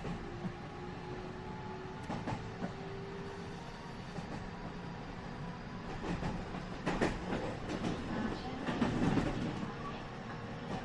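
Inside a JR West 207 series 1000-subseries electric train motor car (Toshiba GTO inverter) running: a steady wheel and motor rumble with faint inverter tones, and wheels clattering over rail joints, briefly about two seconds in and then in a louder run of clicks from about six to nine seconds in.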